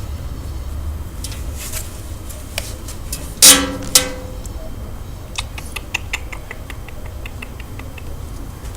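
A two-month-old puppy gives one short, loud bark about three and a half seconds in, followed by a sharp click. Later comes a run of light, quick clicks, about five a second.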